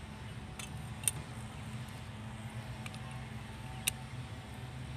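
A flat steel brush-cutter blade being handled, giving two sharp metallic clicks, about a second in and again near four seconds, with fainter ticks between. A steady low hum runs underneath.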